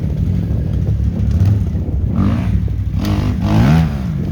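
Vehicle engine running with a steady low drone, its pitch rising and falling a couple of times as it revs up and eases off.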